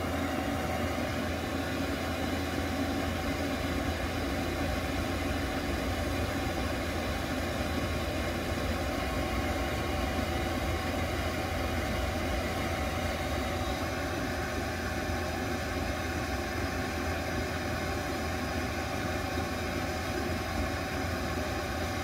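Cheap Chinese diesel air heater running steadily, its blower fan humming as it pushes hot air through the ducting.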